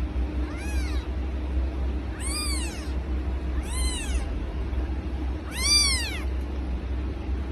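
A very young kitten mewing: four short high-pitched cries, each rising and then falling in pitch, the last the loudest. A steady low hum runs underneath.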